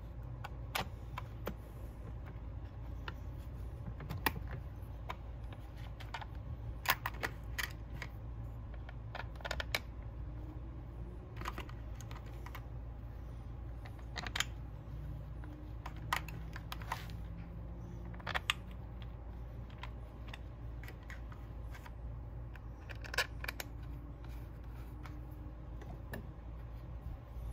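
Irregular light clicks and taps of hard plastic and metal as a recoil starter cover is handled and pressed onto a Husqvarna 371 XP chainsaw, over a steady low hum.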